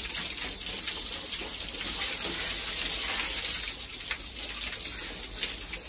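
Water gushing steadily from a hose pipe fed by an electric water pump, pouring into a room to wash it out.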